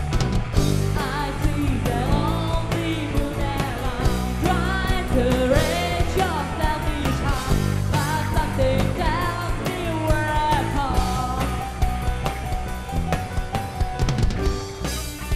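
Rock band playing loudly: a woman singing over electric guitars, bass and a drum kit keeping a steady beat.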